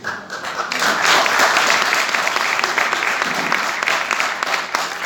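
Audience applauding, a dense clapping that swells up about half a second in and starts to thin out near the end.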